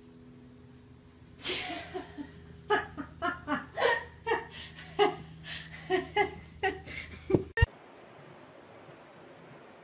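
A person laughing hard in a long run of short bursts, several a second, which cuts off suddenly after about six seconds.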